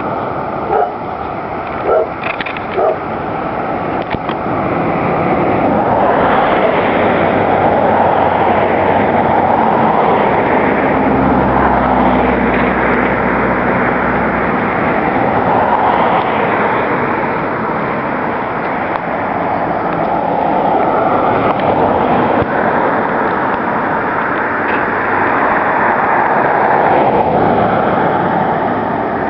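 Steady rushing vehicle and wind noise, with a few light clicks in the first seconds and a low engine hum for a few seconds about halfway through.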